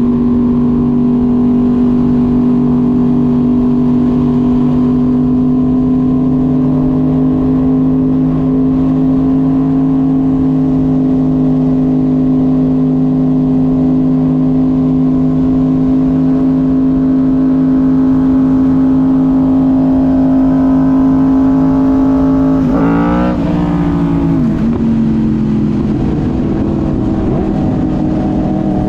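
Car engine running at steady revs, the note creeping slightly higher, then dropping quickly about three-quarters of the way through and settling at a lower steady note.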